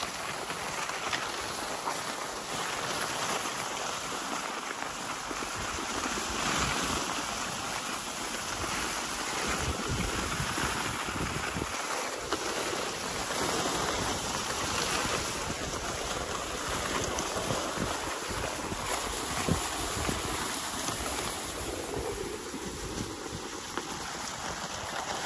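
Wind blowing across the microphone: a steady rushing noise that swells and dips unevenly.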